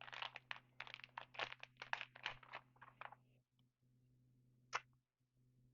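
Crinkling plastic wrapper of a trading card pack being handled, a rapid run of crackles for about three seconds, then a single click near the end.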